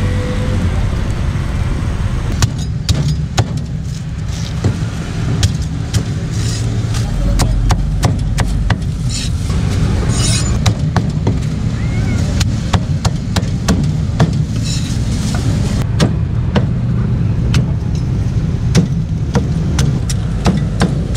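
Cleaver chopping roast pork on a wooden chopping block: sharp, irregular knocks, starting a couple of seconds in and repeating throughout, over a steady low rumble of street traffic.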